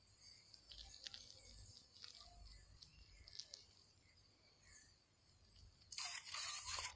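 Faint outdoor background with a few light clicks. About six seconds in, a loud burst of noise lasts about a second.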